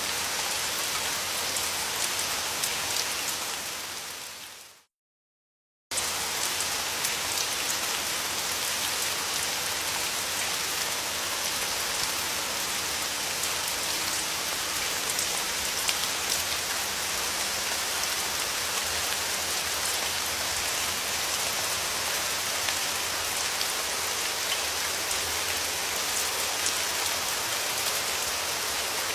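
Steady rain falling, a dense even patter of drops. About four seconds in it fades out to a second of silence, then cuts back in abruptly and carries on unchanged.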